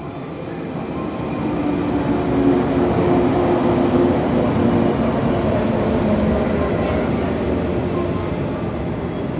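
Yellow electric local train arriving alongside the platform. Its motors hum with a few steady tones, and its wheels run on the rails, getting louder over the first two seconds and then holding steady.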